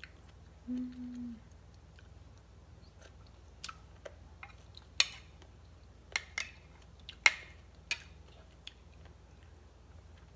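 Crisp crunching as green mango salad strips are bitten and chewed: a scatter of sharp crunches, the loudest about five and seven seconds in, after a short closed-mouth hum about a second in.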